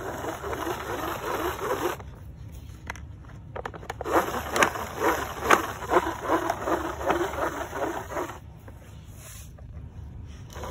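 Hand-held crank broadcast spreader being cranked in two spells, a busy whirring rattle with sharp clicks as granular fertilizer is flung out over soil and concrete.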